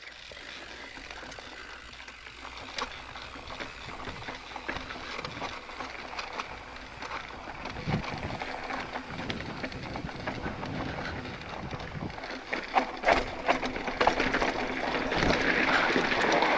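Mountain bike riding over sandstone slickrock and then loose gravel: tyre rolling noise with clicks and rattles from the bike, getting louder and busier over the last few seconds.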